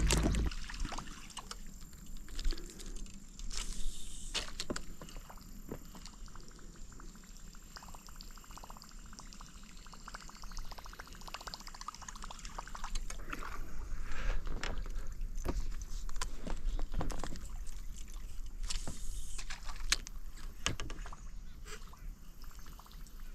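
Water trickling and sloshing around a small fishing boat, with scattered light clicks and splashes.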